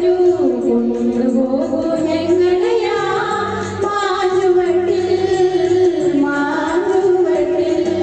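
A song: a singing voice holding long notes that slide from pitch to pitch, over steady bass notes and a light ticking beat.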